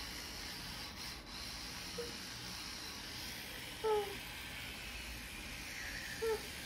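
Toothbrush scrubbing a child's teeth over a steady faint hiss, with three short falling vocal sounds from the child, the loudest about four seconds in.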